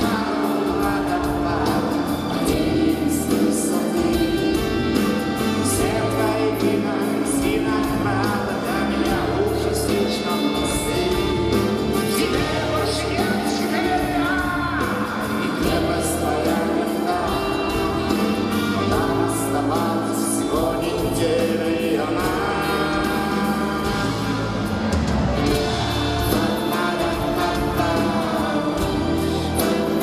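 A male vocalist singing in Russian with a live rock band, drums and cymbals keeping a steady beat, heard from among the concert audience.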